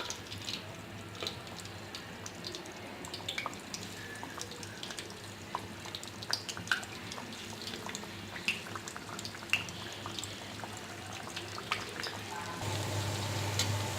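Rice-flour pakon pitha deep-frying in hot oil in a kadai: a steady sizzle with many small scattered pops and crackles, getting louder near the end.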